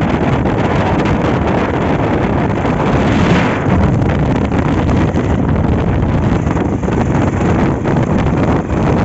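Loud, steady wind rumble on the microphone over the running noise of a vehicle, with a brief swell about three seconds in.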